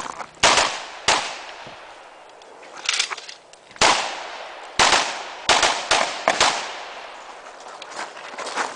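AR-15 rifle firing about ten shots at an uneven pace, singly and in quick pairs, each shot trailing off in an echo.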